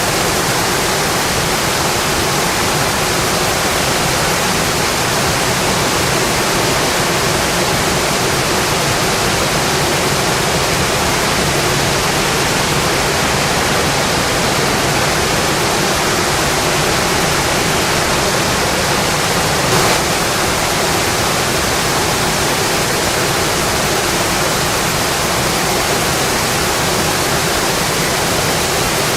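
Steady rainfall, an even, unbroken hiss with one slightly louder tap about two-thirds of the way through.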